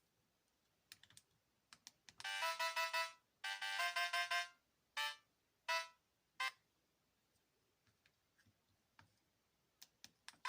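Sony Ericsson K508i mobile phone playing short synthesized message-alert tones: two brief melodic phrases about two and three and a half seconds in, then three single short notes. Light keypad clicks come before and after the tones.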